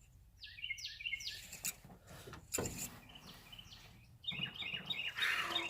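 Songbirds chirping in two bursts of quick, short, falling high notes, with a single sharp knock in between.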